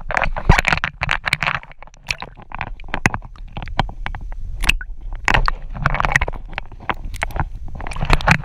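Seawater sloshing and splashing around a camera dipped under the surface beside a kayak and lifted out again, with many sharp knocks and taps from handling scattered throughout.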